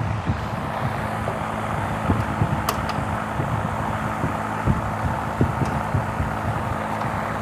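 Steady low hum and rumble, with scattered light knocks.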